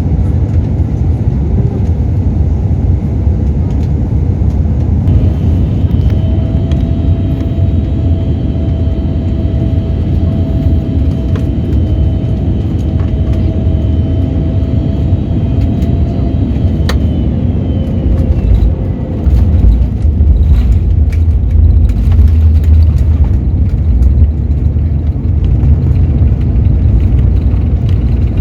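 Airliner cabin noise: a heavy, steady rumble of jet engines and airflow with a faint steady whine over it. About two-thirds of the way through, the whine fades and the low rumble grows louder, with a few sharp clicks.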